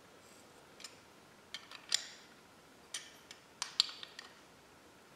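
A steel combination wrench clinking against a bolt and the rear brake rotor guard as the bolt is turned and the wrench reset, tightening the guard onto the brake caliper: about seven sharp, irregular metallic clicks with short ringing.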